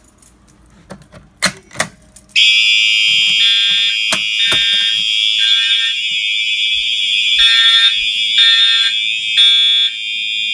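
Fire alarm horns sounding together after a couple of sharp clicks: about two seconds in they start suddenly, loud and piercing. One horn sounds continuously and another pulses about once a second.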